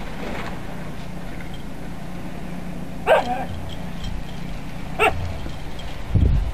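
Siberian husky barking twice, two short sharp barks about two seconds apart, over a steady low hum, with low rumbling thumps near the end.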